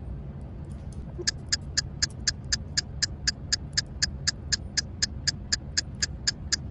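Rapid, evenly spaced ticking, about four ticks a second, starting about a second in and keeping a steady rhythm.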